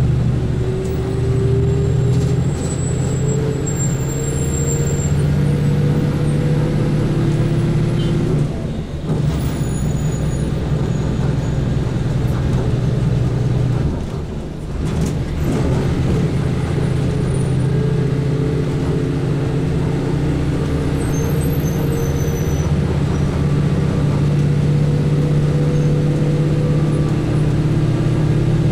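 Overland truck's diesel engine running under way, heard from inside the truck: a steady low drone whose note climbs slowly as it pulls, with two brief dips about nine and fourteen seconds in.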